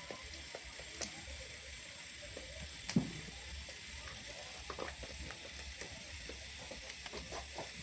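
Spoon stirring and scraping thick canjica in a pot over a steady sizzling hiss, with small scrapes throughout and one louder knock about three seconds in. The canjica has cooked down enough to come away from the sides of the pan.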